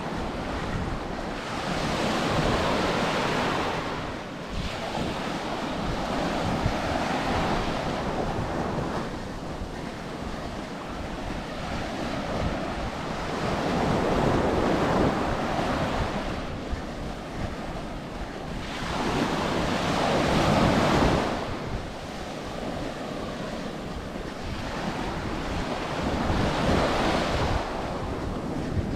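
Ocean surf washing onto a beach, the sound swelling and fading over a couple of seconds with each wave, the strongest surge about two-thirds of the way in. Wind rumbles on the microphone underneath.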